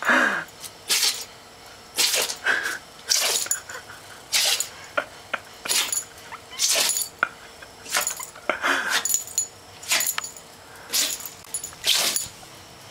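Dachshund in a sneezing fit: short, sharp sneezes about once a second, some coming in quick pairs.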